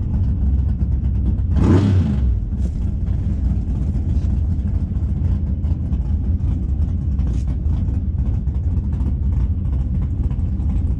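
Drag-race car engines idling, a steady low rumble, with a brief rise in revs about two seconds in.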